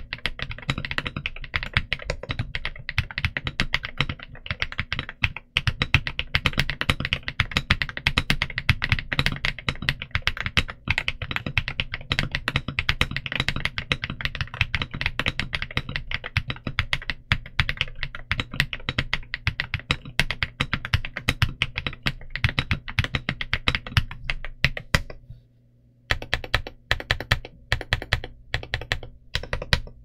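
Fast, continuous typing on a Redragon Ucal Max K673 mechanical keyboard fitted with Redragon Mint Mambo linear switches and PBT MOA-profile keycaps: a dense run of rapid keystrokes, with one brief pause late on.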